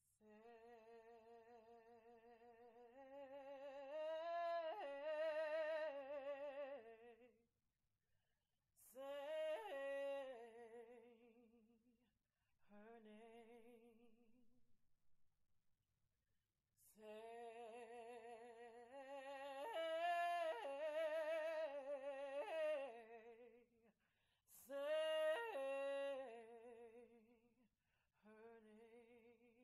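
A woman singing solo and unaccompanied, holding long notes with vibrato in several phrases broken by short pauses.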